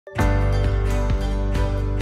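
Background music starting up, with a steady beat of about two notes a second.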